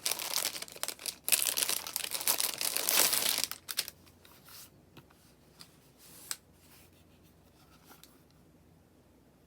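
Packaging being crinkled and torn open by hand for about three and a half seconds, then only a few light clicks and taps.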